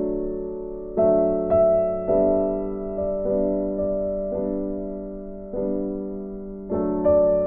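Background music: slow, soft piano chords, each struck and left to fade before the next, about once a second.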